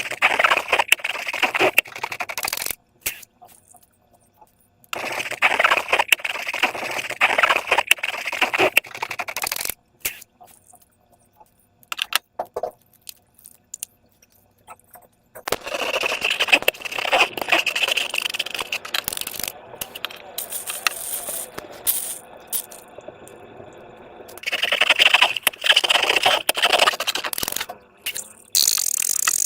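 Slime being squeezed and worked by hand, giving dense crackling and clicking sounds. These come in three spells of a few seconds each, with short pauses between them.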